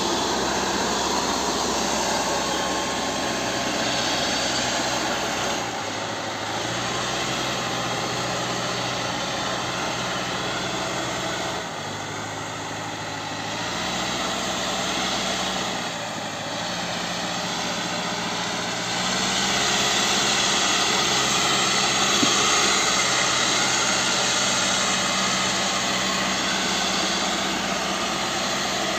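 Caterpillar 434E backhoe loader's diesel engine running under working load. Its note dips briefly a few times as the load changes, and it runs louder over the last third.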